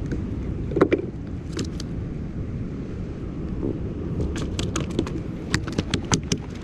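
Wind rumbling on the microphone throughout. Over it come sharp clicks and taps from fishing pliers and a freshly caught croaker being handled on wooden pier boards: one knock about a second in, then a run of quick irregular clicks in the second half.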